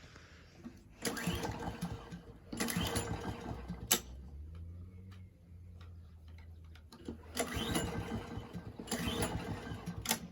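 A four-stroke petrol lawn mower's recoil starter being pulled four times, each pull a rattling burst of about a second, with a sharp click after the second pull and after the last.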